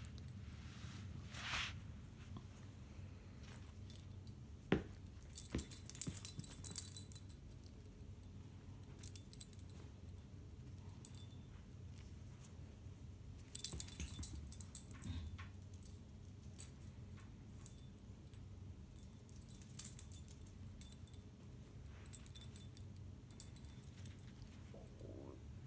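Metal tags on a puppy's collar jingling in several short bursts as it plays, with a few sharp knocks in between.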